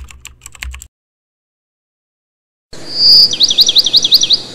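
Intro sound effects: a run of quick typing-like clicks over a low hum that stops about a second in. After a silent gap, a hiss comes in with a high warbling chirp, about six fast up-and-down pitch swoops in a second, like a bird or insect trill.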